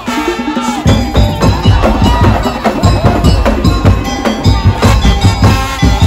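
Daul Madura (tong-tong) percussion band playing: dense, fast drum and wood-block-like beats with a pitched melody over them, the heavy beats coming in about a second in.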